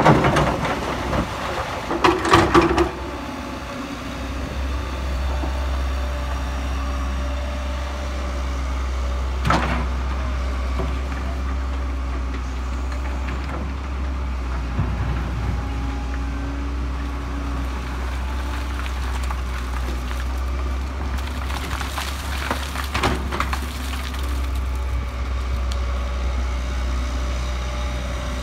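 Case hydraulic excavator's diesel engine running steadily, with loud crashes in the first three seconds as rock and dirt are dumped from its bucket into a dump truck's steel bed. A few single clanks of the bucket follow later.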